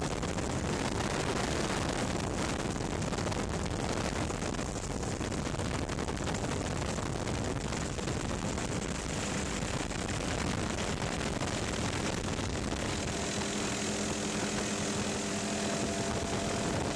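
Steady helicopter engine and rotor noise. From about three-quarters of the way through, a steam locomotive's multi-note chime whistle sounds and is held.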